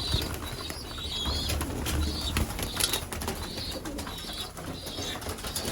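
Racing pigeons flapping their wings and shuffling about, with scattered clicks and rustles.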